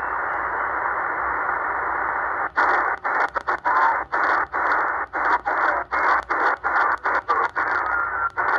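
Hiss and static from an XHDATA D-808 portable shortwave receiver on the 40-metre amateur band. It runs steady for about two and a half seconds, then is chopped by rapid brief dropouts with clicks, several a second, as the receiver is stepped across the band.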